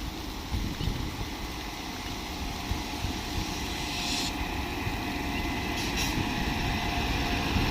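A train's running noise: a steady rumble and hiss that grows slowly louder.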